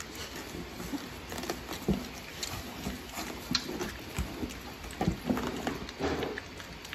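Three-week-old American Bully puppies shuffling on pee pads and nosing at a pan of soft mush, with faint scattered clicks and small smacking sounds, and a few brief whimpers about five to six seconds in.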